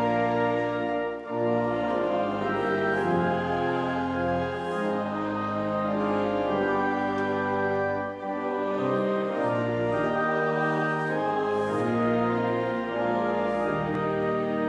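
Pipe organ playing a hymn tune in slow, sustained chords.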